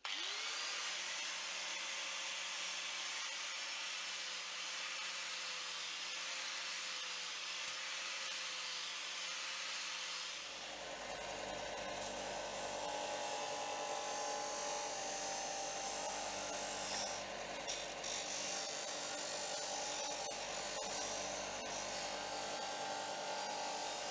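Angle grinder with a flap disc spinning up and grinding steel with a steady whine. About ten seconds in it gives way to a Workzone Titanium bench disc sander running and grinding the steel part, throwing sparks.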